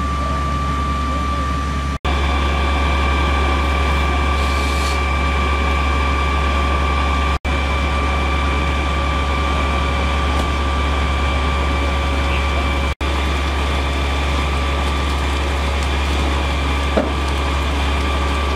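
Fire engine pump running with a steady drone while a large building fire crackles. The sound drops out briefly three times.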